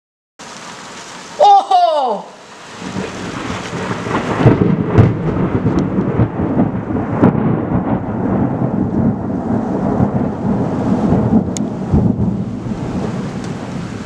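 Steady hiss of heavy rain, then from about three seconds in a long, low rolling rumble of thunder that goes on for around ten seconds. A brief falling cry comes about a second and a half in.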